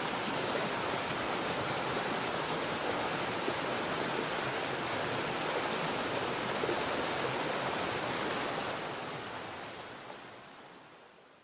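Waterfall pouring steadily into a rocky pool, an even rush of falling water that fades away over the last few seconds.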